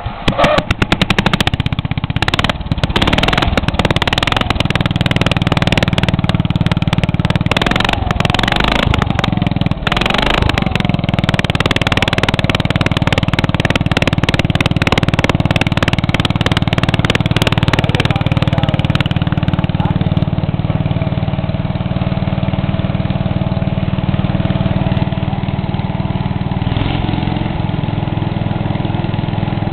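Briggs & Stratton 8 HP single-cylinder engine on a riding mower running with its muffler removed, open exhaust. It comes up loud right at the start, rises and falls in speed for about the first ten seconds, then settles into a steady run.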